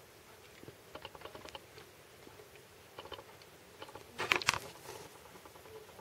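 Kittens scuffling as they play-fight, their paws and claws making scattered light clicks and scratches. A louder cluster of scratchy rustles comes about four seconds in.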